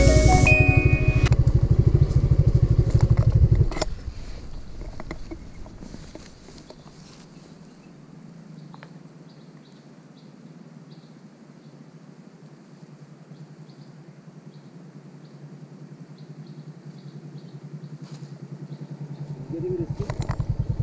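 Background music with a beat for the first four seconds, then a Suzuki Gixxer's single-cylinder engine idling steadily, getting louder near the end.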